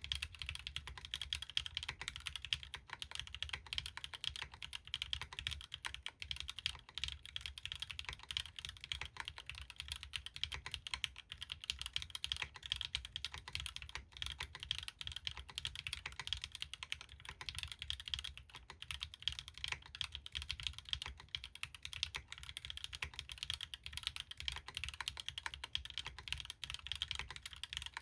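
Continuous fast typing on a custom mechanical keyboard (Bahm Studio Droplet) fitted with stock Gateron L'Orange switches, Linworks Greige keycaps and a carbon-fibre plate. It is a dense, even stream of keystroke clacks, each with a bright click and a low thock underneath.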